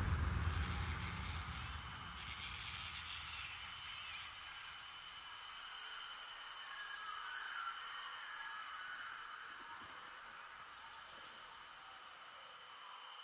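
Background music fading out at the end of the track, leaving a faint steady high tone and a quick run of chirping ticks that repeats about every four seconds.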